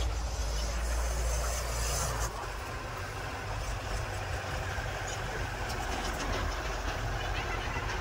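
Swaraj 843 XM tractor's three-cylinder diesel engine running steadily, a little louder for the first two seconds, then settling to an even idle.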